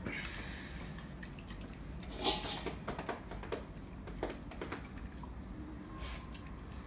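Rottweiler eating dry kibble from a stainless steel bowl: irregular crunches and clicks, the loudest a little over two seconds in.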